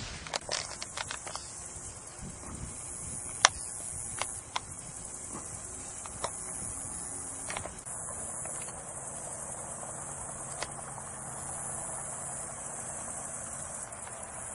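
A steady, high-pitched chorus of insects, with a few scattered sharp clicks and knocks, the loudest about three and a half seconds in.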